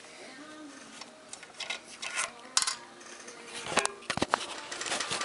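Metal parts of an old cast-iron Yost swivel vise being handled during disassembly: scattered clinks and clanks, with a few sharp knocks about two and a half seconds in and again around four seconds in.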